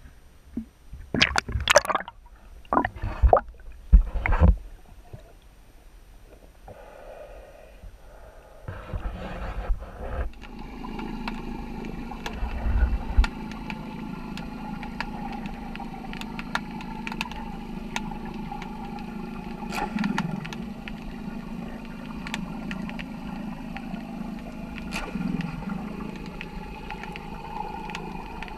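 Small waves slapping and splashing against a waterproof camera held at the water surface, in loud irregular bursts. About ten seconds in the camera goes under, and the sound turns to a steady, muffled underwater hum with scattered faint clicks.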